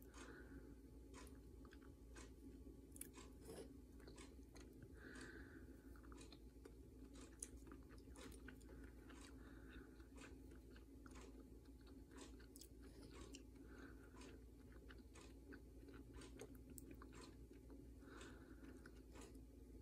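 Faint scraping and clicking of a rose quartz crystal pendant rubbed against a glass jar, with a short squeak every few seconds: a scratch test of whether the stone is real quartz.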